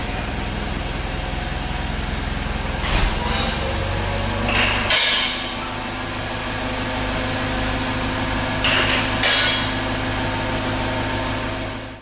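Forklift engine running steadily, its note dropping slightly about five seconds in, with sharp metal clunks about three, five and nine seconds in. The sound fades out at the very end.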